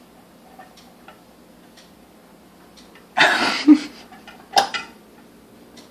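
Faint clicks and taps of handling at a kitchen counter. About three seconds in there is a short noisy burst, then a sharp click about a second later.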